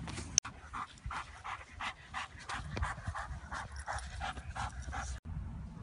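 Belgian Malinois panting rapidly, about three breaths a second. A sharp click sounds near the start.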